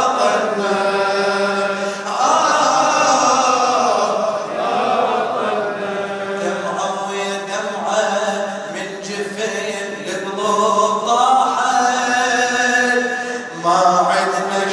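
A man chanting an Arabic elegy poem into a microphone in long, drawn-out held notes, amplified through loudspeakers.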